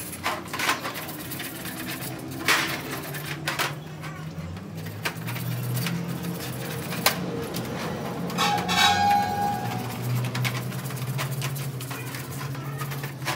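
Metal parts and hand tools clinking and knocking during a manual truck gearbox rebuild: scattered sharp strikes, one of them ringing briefly about nine seconds in.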